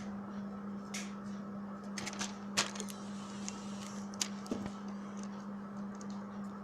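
Scattered clicks and rustles of a phone's retail box and packaging being handled, a sharper click about two and a half seconds in, over a steady low hum.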